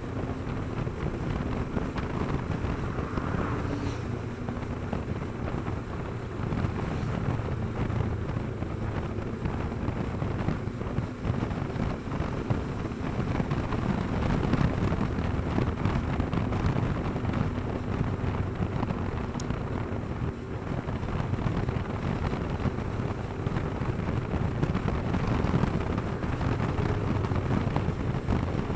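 Wind rushing over the microphone at road speed, over the steady drone of a Kawasaki Versys 650's parallel-twin engine cruising.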